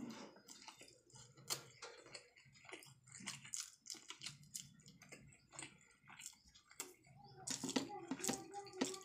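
Close-miked wet chewing and mouth clicks of a man eating rice and potato fry by hand, with soft squishing as his fingers mix the rice on a steel plate near the end.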